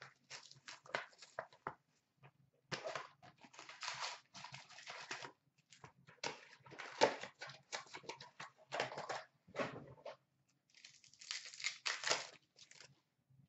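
A hockey trading-card box and its packs being opened by hand: irregular bursts of tearing and crinkling of cardboard and pack wrappers, with the rustle of cards being handled.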